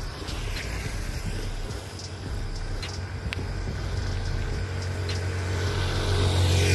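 Motorcycle engine coming up from behind and drawing near, its low drone growing louder over the last two seconds, over a steady low rumble.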